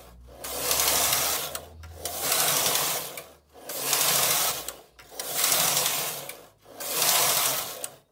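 Silver Reed LC2 lace carriage pushed back and forth across the punchcard knitting machine's needle bed on transfer rows, moving stitches onto neighbouring needles for lace. It makes five rushing, rattling passes of a little over a second each, with short pauses as it changes direction.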